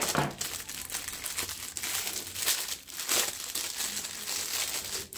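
Packaging crinkling and rustling as it is handled, a dense crackle that starts suddenly and goes on without a break for about five seconds.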